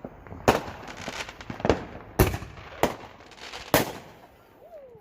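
Fireworks going off: five sharp, loud bangs in quick, uneven succession, each with a short echoing tail, then a quieter stretch near the end.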